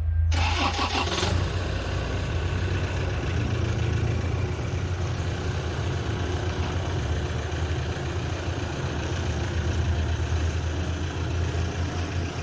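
N class diesel-electric locomotive's EMD two-stroke diesel engine running with a steady, throbbing low rumble. A short burst of hiss sounds over it just after the start.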